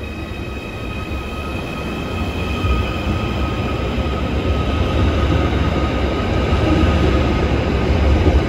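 Merseyrail Class 777 electric multiple unit pulling out of an underground station platform and gathering speed. It makes a deep rumble with a steady faint whine, and grows louder as the carriages pass.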